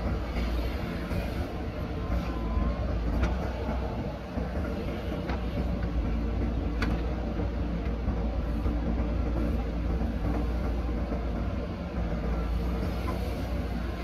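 JCB backhoe loader's diesel engine running steadily under load as the backhoe digs soil and swings to load a dump truck, with a few sharp knocks from the working arm and bucket.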